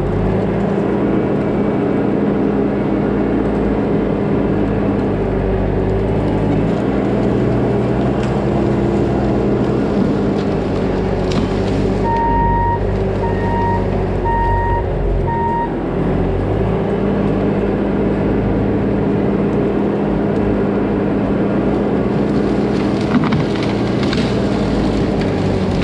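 Diesel engine of a Bobcat T650 tracked skid steer running steadily under work. Its reverse backup alarm beeps four times about halfway through as the machine backs up.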